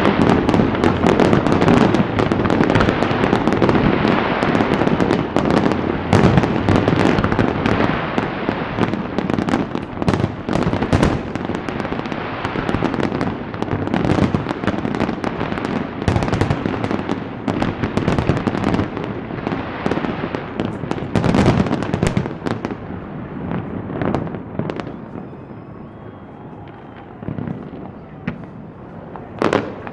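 Aerial fireworks display: a dense, continuous barrage of bursting shells and crackling, which thins out over the last several seconds to scattered bangs.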